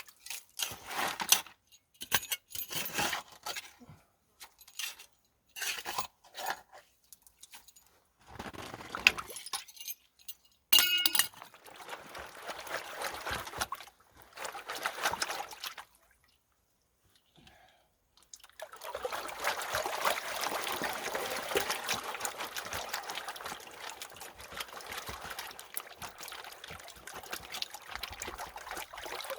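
Stones and gravel clinking and clattering as creek material is scooped into a gold pan, then, after a short pause, a steady rush of water as the pan is worked in the creek.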